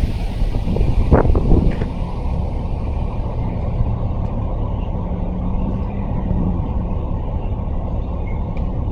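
Wind buffeting the microphone: a steady low rumble, with a brief faint hum about five seconds in.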